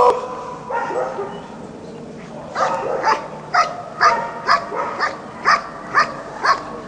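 German Shepherd barking steadily at the helper, about two barks a second from a few seconds in, while guarding him after the sleeve bite in IPO protection work.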